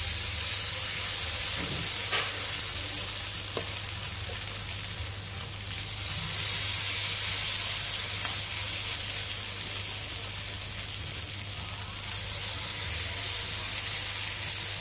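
Semolina and potato batter sizzling as it is spooned in rounds onto a hot nonstick tawa with mustard seeds and curry leaves: a steady frying hiss, with a couple of faint clicks.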